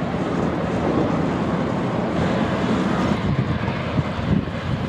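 Embraer 190's twin GE CF34 turbofan engines running at taxi power, a steady jet rumble and rush as the airliner turns to line up for take-off.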